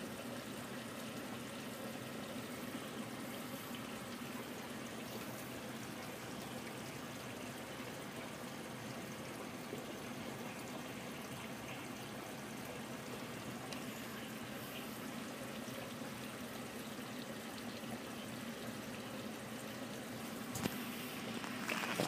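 Rusty gas water heater giving off a steady rushing noise, with a couple of sharp knocks near the end.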